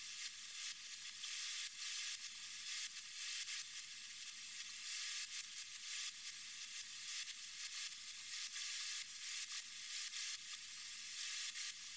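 Gravity-feed compressed-air spray gun spraying primer, a steady hiss of air and atomised paint that drops off briefly again and again as the trigger is worked in short passes.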